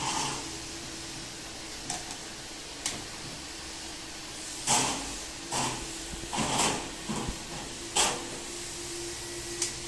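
Plastic feeding-bottle parts knocking and scraping as they are set into a bottle sterilizer with tongs: a string of separate clatters, the loudest near the middle and about eight seconds in, over a faint steady hum.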